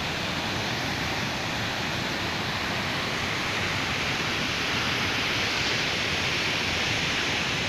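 Steady, unbroken rush of a waterfall in full monsoon flow.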